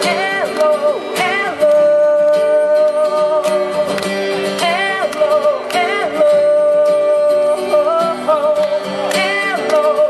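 Male vocalist singing live over his own strummed acoustic guitar, with long held notes on open vowels.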